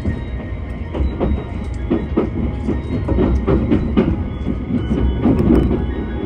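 Inside a JR West 273 series electric limited express train running along the line: a steady low rumble, with irregular wheel clacks over the rail joints.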